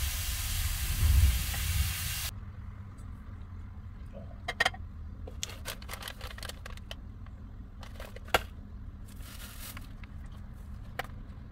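Food sizzling loudly in a frying pan on a portable camp stove, cutting off abruptly about two seconds in. After that come scattered light clicks, rustles and a sharp knock as packets and containers are handled, over a low steady hum.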